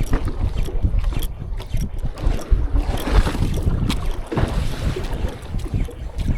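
Strong wind buffeting the microphone on a small boat at sea, a gusty low rumble with water splashing against the hull.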